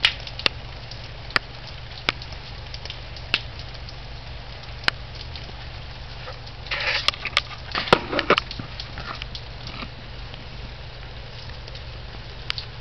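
Rain falling in a garden: a steady hiss with scattered sharp, single drips landing close by at irregular intervals. A short cluster of louder, rougher noises comes a little past halfway.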